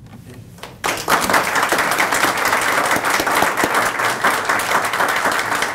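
Audience applauding, a dense patter of many people's hand claps that starts suddenly about a second in, after a short lull.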